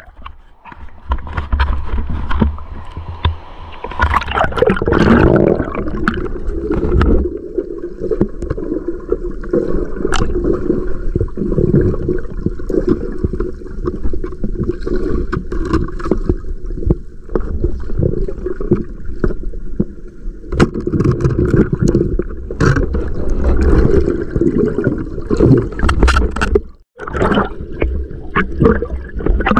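River water gurgling and rushing with a deep rumble, broken by scattered knocks and scrapes.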